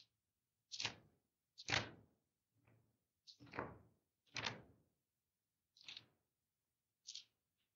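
Bible pages being turned to find a passage: a series of short, soft paper swishes, about one a second.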